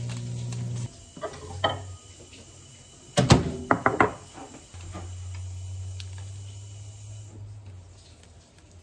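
A microwave oven's hum cuts off about a second in, then a few light knocks and, near the middle, a burst of sharp clunks as a ceramic bowl is set down on the counter. A low steady hum follows for a few seconds.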